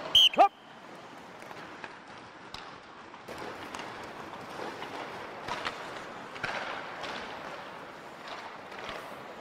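Ice skates scraping and carving on the rink as young hockey players sprint in a race. Right at the start there is a short, loud, high-pitched signal with a falling pitch, sending off the race.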